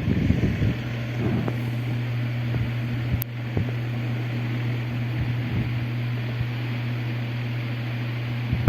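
Tron Jattron 60 cm wall fan running: a low steady motor hum under the rush of moving air. There is a sharp click about three seconds in.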